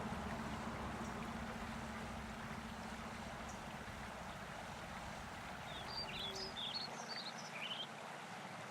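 Steady outdoor background noise with a low hum under it, and a short run of high bird chirps about six to eight seconds in.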